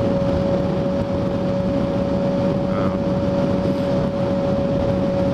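Sport motorcycle engine running at a steady highway cruising speed, an even drone with a constant whine, under wind and road noise.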